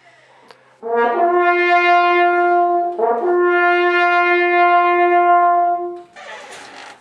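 A single long musical note at one steady pitch, held about two seconds, broken off briefly, then sounded again and held about three seconds more. A short burst of hiss follows near the end.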